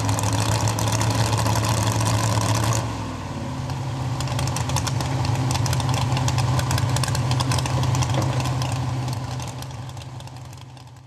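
Modified pulling truck's engine running loudly with a rough, crackling idle while hooked to the sled before the pull. It dips about three seconds in, builds back up, then fades out near the end.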